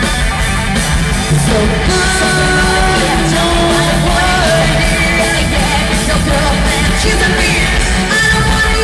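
Live pop-rock band playing loud, a woman singing long held notes over drums and bass.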